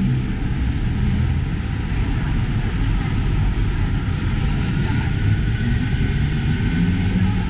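Busy city street traffic: a steady rumble of vehicle engines, with voices in the background.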